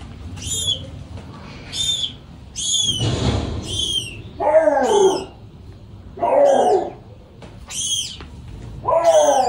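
Newborn lynx kitten squeaking over and over, short high thin calls about once a second, calling for its mother. Three louder, lower cries that fall in pitch come about four and a half, six and a half and nine seconds in.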